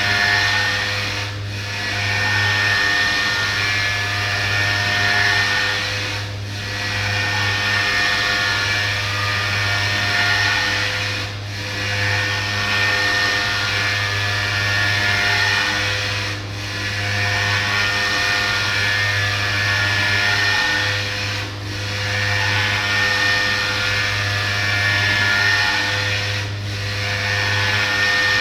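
CNC milling machine's spindle running and cutting, a steady high whine over a low hum, briefly easing about every five seconds.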